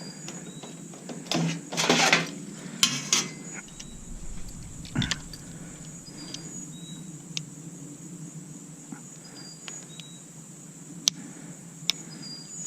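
A cordless drill-driver whirring in a few short bursts as it backs out a screw from the coffee maker's metal housing, followed by a few sharp metal clicks as parts are handled.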